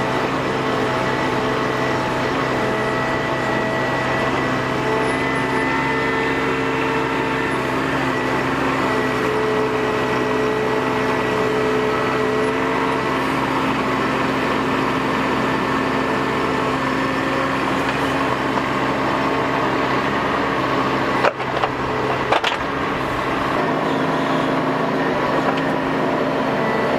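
Bobcat mini excavator's diesel engine running steadily, with a hydraulic whine that comes and goes as the boom and bucket are worked, digging in clay soil. About three-quarters of the way through there is a short break in the sound and a sharp knock.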